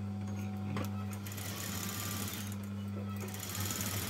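Electric sewing machine running and stitching lace trim onto fabric, over the steady hum of its motor.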